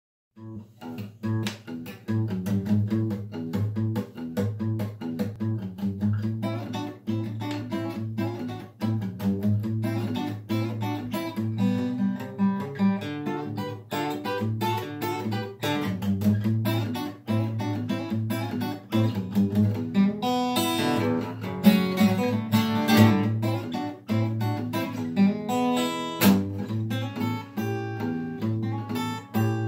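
Steel-string acoustic guitar played solo and picked: steady low bass notes under a melody of plucked notes, with a busier run of quick notes about two-thirds of the way through.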